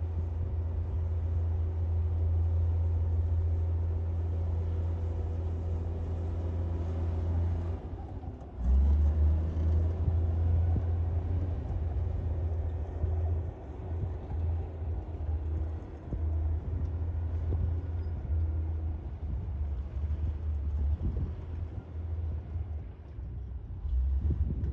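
Komatsu D58P bulldozer's diesel engine running under load with a low, steady drone. About eight and a half seconds in it steps up louder, then rises and falls unevenly as the machine works.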